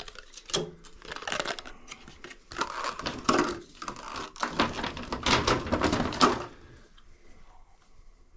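Plastic packaging crinkling and rustling as it is handled, with scattered clicks. It stops about six and a half seconds in.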